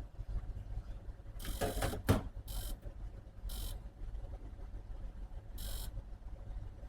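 Vacuum laminator working through its cycle: a steady low hum with four short hisses of air and a sharp click about two seconds in.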